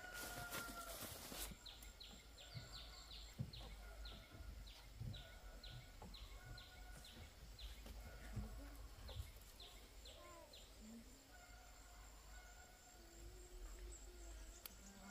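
A bird gives a long run of faint, short, high chirps, each falling in pitch, about two or three a second, which stop about ten seconds in. It follows a brief burst of noise at the start, over a faint steady high whine.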